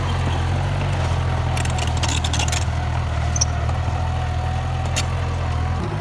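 Komatsu D31P bulldozer's diesel engine running steadily, with a steady whine above it. There is a short spell of hissy rattle about two seconds in, and the engine note dips just before the end.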